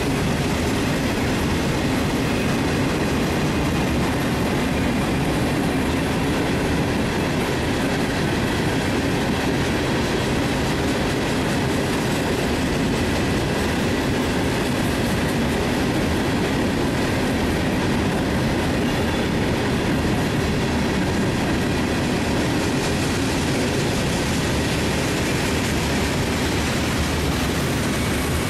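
Mixed freight train of tank cars, boxcars and covered hoppers rolling past: a steady, unbroken sound of steel wheels running on the rails.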